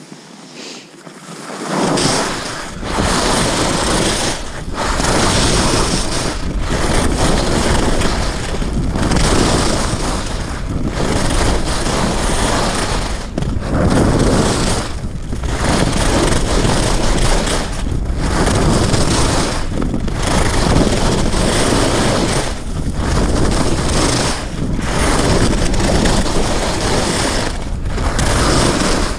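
Wind noise on an action camera's microphone and skis running over snow during a downhill ski run, loud and rushing from about two seconds in. The noise dips briefly about every two seconds.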